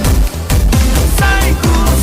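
Electronic dance music with a steady four-on-the-floor kick drum and synth melody.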